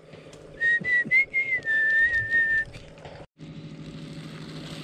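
Someone whistling a clear tune: a few held notes that shift slightly in pitch, for about two seconds starting half a second in. A faint steady low hum takes over near the end.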